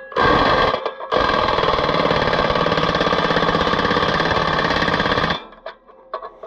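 Earthquake XT impact wrench hammering as it runs down a nut on a disc harrow's bearing-retainer bolt. A short burst comes first, then one steady run of about four seconds that cuts off, leaving a few light metal clicks.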